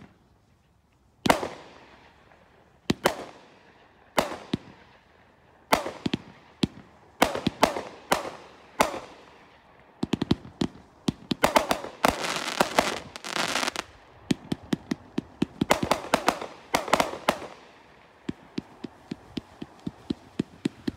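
OMG Fireworks '50 Second Fire Storm' multi-shot firework cake firing. Single loud shots come one to two seconds apart, each with a fading tail, and come faster after about seven seconds. Then there are dense stretches of crackling, and near the end a rapid run of smaller pops.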